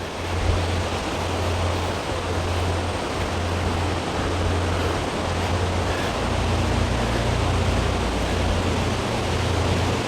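Steady rushing of falling water from Wli Waterfalls, an even noise with a low rumble underneath.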